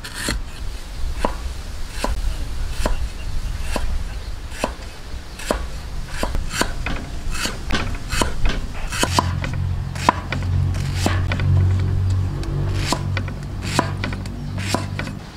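Cleaver chopping on a thick wooden chopping block: sharp knocks at an uneven pace, about one or two a second. A low steady hum joins in from about nine seconds in.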